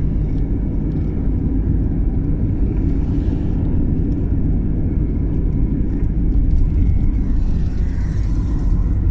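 Steady low rumble of a car driving along the road, heard from inside the cabin: engine and tyre noise with no change in pace.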